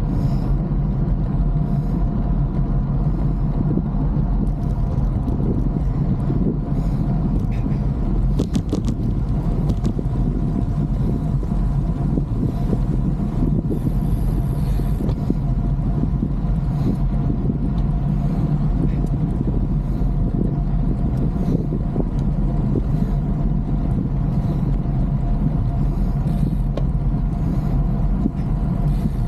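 Steady wind and road rumble from riding a bicycle, with the air rushing over the camera microphone.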